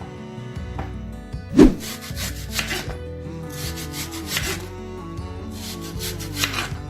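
Repeated rasping, scraping strokes of food preparation, coming in bunches about every two seconds, with one loud thump about a second and a half in.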